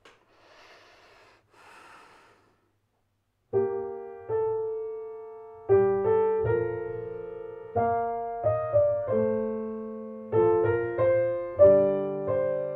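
Two faint breaths, then, about three and a half seconds in, a piano starts a slow song introduction. Chords are struck every second or two, and each is left to ring and fade.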